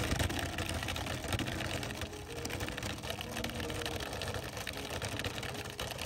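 Small wooden cart on little wheels rattling and scraping as it is dragged over dirt and concrete: a steady, gritty noise full of small clicks.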